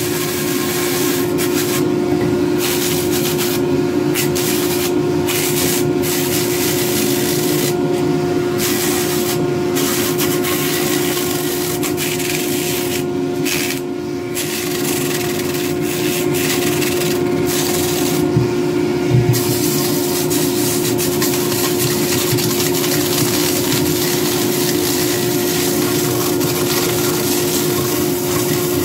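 Dremel rotary tool spinning a homemade sanding disc, its motor holding a steady whine while the abrasive scratches against carved wood. The scratchy sound breaks off briefly and often as the disc is lifted and moved over the carving.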